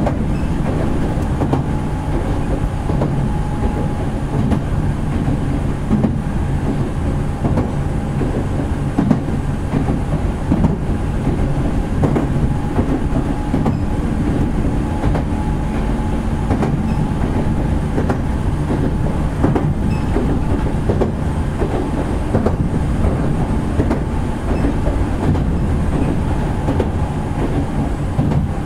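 Toyohashi Railway 1800-series electric train running along the line, heard from inside the passenger car: a steady rumble of wheels on rail with irregular clickety-clack over the rail joints and a faint steady tone.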